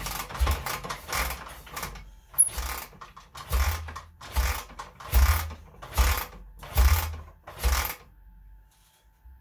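Rebuilt Soviet K-750 side-valve flat-twin motorcycle engine being kicked over on a stand: about ten kick-start strokes, one every second or less, each a mechanical clack and chuff as the engine turns over without firing. The kicking stops about 8 seconds in.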